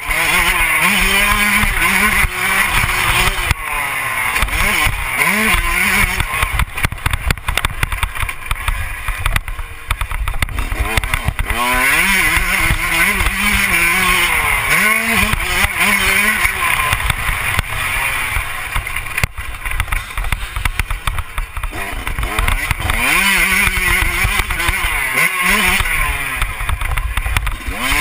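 Motocross dirt bike engine on the throttle, its pitch climbing and falling again and again as the rider accelerates, shifts and backs off, with several short dips where the throttle is chopped.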